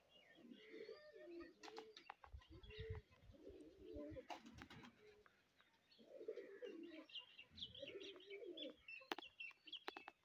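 Domestic pigeons cooing faintly in several low, rolling bouts. Higher chirps of small birds are heard over them in the second half, with a few sharp clicks.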